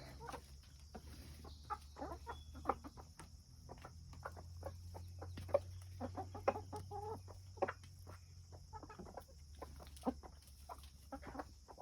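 Chickens clucking softly while feeding: many short, scattered calls with no steady rhythm.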